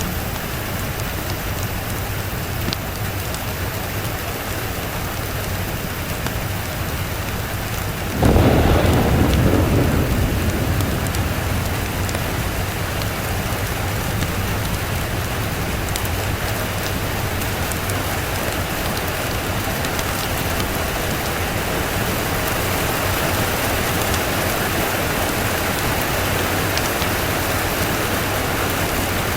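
Steady heavy rain falling, with a roll of thunder that breaks suddenly about eight seconds in and rumbles away over several seconds.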